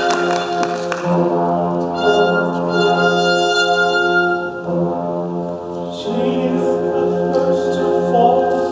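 Orchestral music with sustained brass chords that change every second or two.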